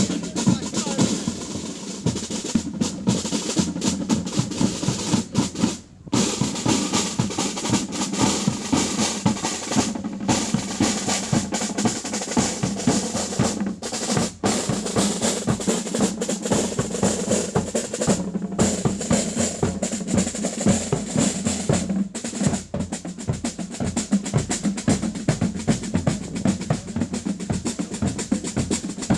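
Drum band playing: rapid snare-drum rolls over a bass-drum beat, with short breaks between phrases.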